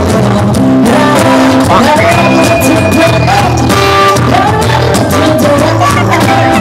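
Background pop music with a singer over a steady bass line.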